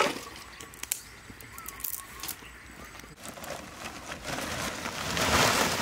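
A few sharp knocks, then from about four seconds in a rustling crackle that grows louder: a cow leg wrapped in a plastic sack being handled and lowered into an earth pit over dry sticks.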